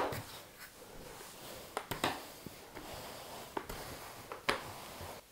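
Rolling pin rolling out yeast dough on a baking mat: faint rolling with a few soft knocks.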